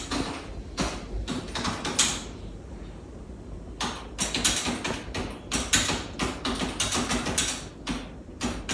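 Irregular clattering and knocking: many short, sharp knocks one after another, with a pause a little over two seconds in before they pick up again.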